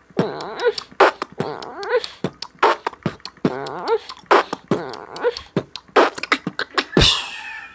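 Human beatboxing: a rhythmic run of mouth-made kick, snare and click sounds with a hummed, gliding vocal line woven between them. A falling whoosh comes near the end.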